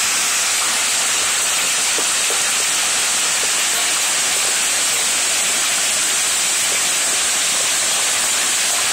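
Heavy rain and hail pouring down: a steady, loud rushing hiss with a few faint, scattered ticks.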